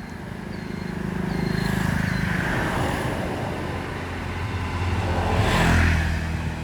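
Two motor vehicles passing on the road one after the other, each engine sound and tyre rush building and fading away. The second pass, about six seconds in, is the louder.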